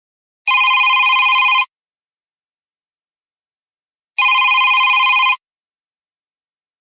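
A smartphone's default ringtone in the style of a classic telephone ring: two identical trilling rings, each a little over a second long, with a pause of a couple of seconds between them.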